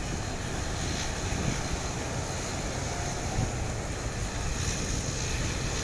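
Wind buffeting the microphone in a steady low rumble, over a distant, even engine noise from a De Havilland Canada Dash 8-400 turboprop turning on the runway and from street traffic.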